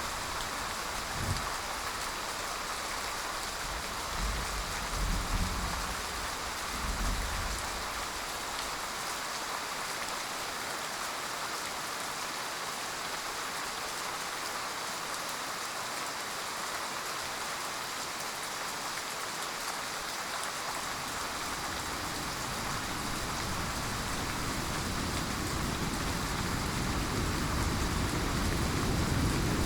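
Steady heavy rain pattering on surfaces, with a few brief low rumbles in the first seven seconds. Over the last several seconds a low rumble of thunder builds.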